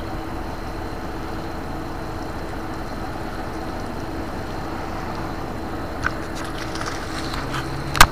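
Truck engine running steadily with a constant hum, the tow truck that is working the lift. A few short sharp clicks and knocks come near the end.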